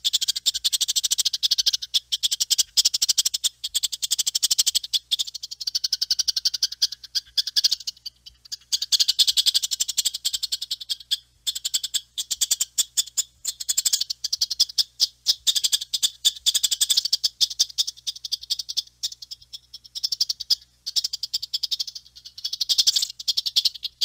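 Squirrel chattering: a long string of rapid, dry clicking calls in runs broken by a few short pauses. It is the squirrel's warning call.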